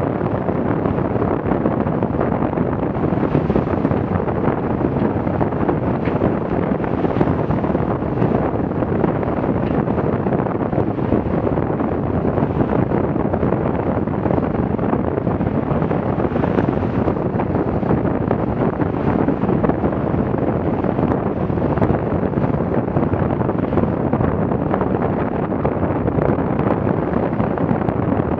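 Steady noise of strong wind buffeting the microphone, mixed with the rush of water and spray along the hull of a Farrier F-82R trimaran sailing at about ten knots through high waves.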